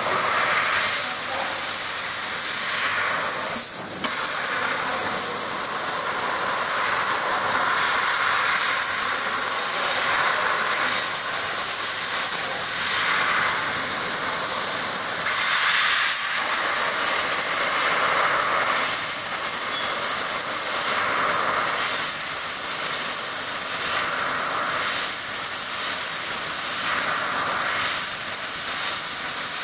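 500 W fiber laser cutting machine cutting 2 mm galvanized steel sheet: a loud, steady hiss of the assist gas jetting from the cutting nozzle as the beam cuts, with a thin high whine above it. The hiss drops out briefly about four seconds in.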